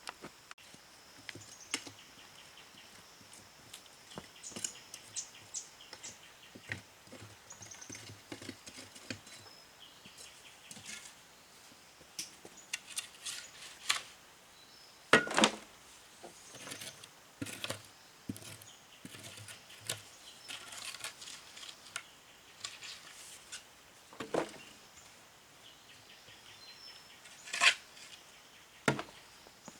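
Irregular knocks, taps and light clatter, with louder thuds about halfway through and twice near the end. Faint high chirping in the background.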